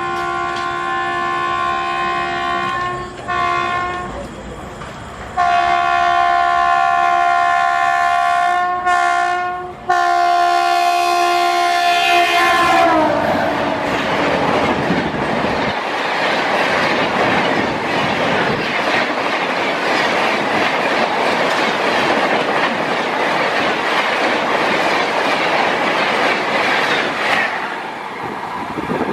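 WAP-7 electric locomotive sounding its horn in repeated long blasts broken by a couple of short toots, the pitch of the last blast dropping as it passes at speed. Then the Rajdhani Express coaches rush past with a steady, loud rolling noise of wheels on rails.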